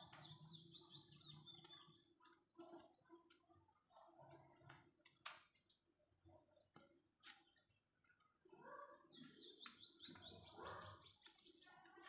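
Quiet, soft chattering and beak clicks from a pair of orange-fronted parakeets preening each other. A quick run of high chirping notes comes near the start, and a longer run from about nine seconds in.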